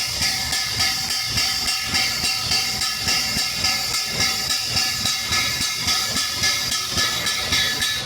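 Air-operated grease pump running, a steady hiss with a regular stroke about twice a second, forcing grease into the rotor head.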